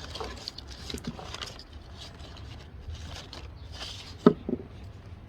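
Hands working with a recoil starter and its new rope: light rustling and scraping, then a sharp knock about four seconds in followed by a softer one.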